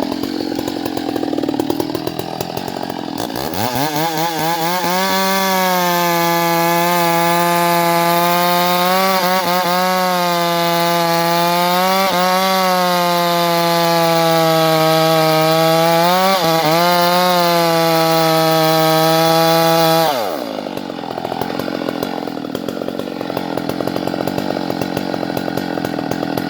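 Two-stroke chainsaw revving up from low speed about three seconds in and held at full throttle for some sixteen seconds, its pitch dipping briefly now and then as the chain bites into a tree trunk being felled. Near twenty seconds it drops back to a low, rough idle.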